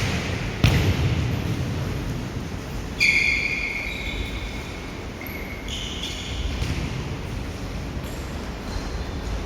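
Indoor futsal play: the ball is struck with a sharp thud twice near the start, echoing in the hall. High-pitched squeals follow about three seconds in and again around five to six seconds.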